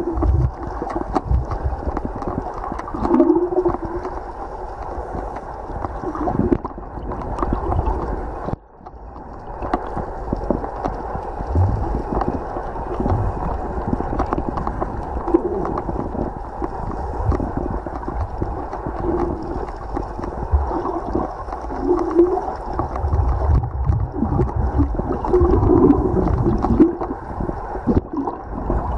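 Muffled underwater noise from a submerged camera: water rushing and gurgling around it, with irregular low knocks and a brief dropout about a third of the way in.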